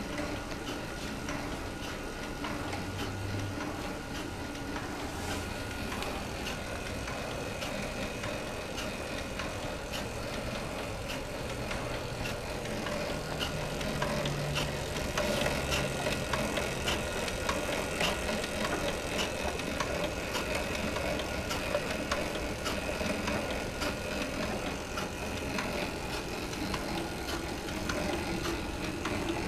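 JM-815 cold automatic strip cutting machine running: a steady motor hum under a continuous run of mechanical clicks as its cutter works through webbing.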